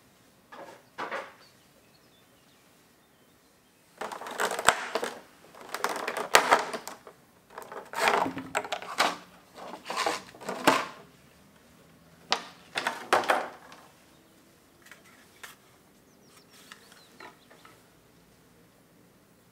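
Clear plastic blister packaging crackling and rustling as hands handle it and pull it apart, in several bursts with sharp clicks, then a few light clicks near the end as the small plastic pieces are handled.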